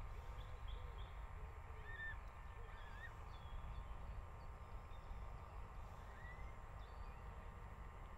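Scattered bird calls: short chirps throughout and a few low hooting calls in the first second or so, over a faint steady low rumble.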